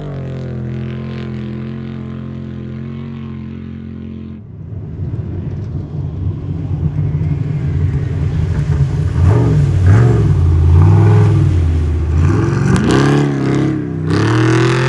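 Off-road race vehicle engine: a steady low drone at first, then from about four seconds in a rougher, louder run with the pitch rising and falling as it revs, loudest around ten seconds in.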